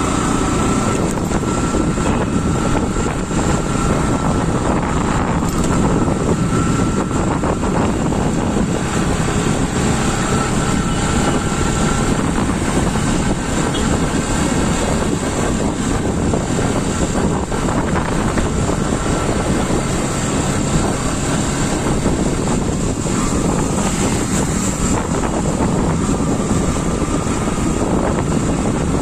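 Strong wind rushing and buffeting over the microphone of a moving motorcycle, with the motorcycle's engine running steadily underneath.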